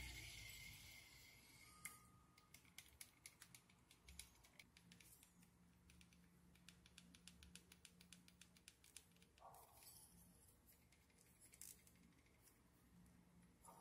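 Daiwa Ballistic LT 4000 spinning reel handled: the rotor's fast-spin whir dies away over the first couple of seconds, then the reel is turned by hand, giving a long run of faint, quick mechanical ticks.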